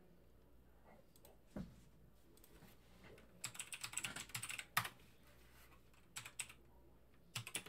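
Typing on a computer keyboard: quick runs of keystrokes in short bursts, after a single low thump about a second and a half in.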